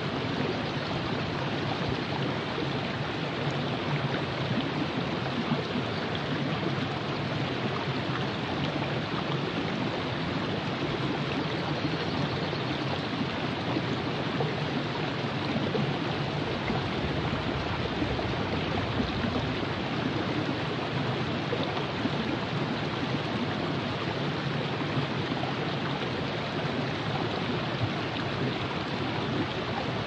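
The Virgin River flowing: a steady, unbroken rush of moving water.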